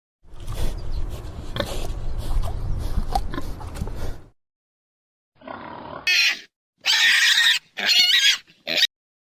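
Pig grunting for about four seconds. After a short gap come several short, shrill calls.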